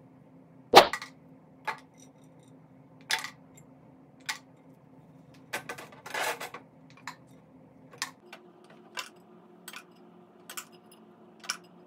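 A dozen or so separate light clicks and knocks, the loudest about a second in, with a short rattling clatter around six seconds in: empty plastic water bottles and small dry dog treats being handled, treats dropped into the hanging bottles and the bottles knocked.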